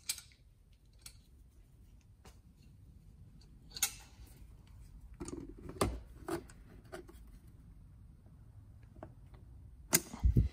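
Scattered clicks and knocks of pliers gripping and tugging at a plastic cover stuck inside a sawn-open aluminum fuel filter housing, with the loudest cluster of knocks near the end.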